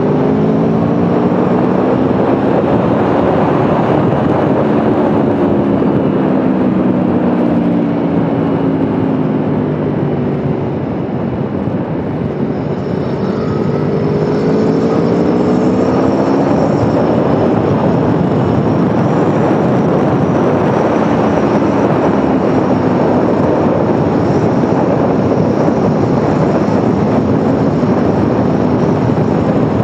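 Motorcycle engine running at road speed under a steady rush of noise. Its pitch falls over the first ten seconds, climbs again from about thirteen to sixteen seconds as it accelerates, then stays fairly even.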